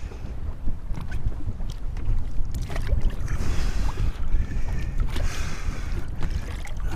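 Strong wind buffeting the microphone, a constant low rumble, with water splashing in two short spells about three and five seconds in.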